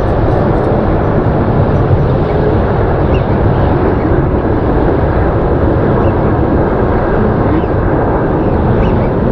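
Twin-engine Boeing 777 jetliner climbing out at takeoff power, its jet engines making a steady, loud rumble that holds even throughout.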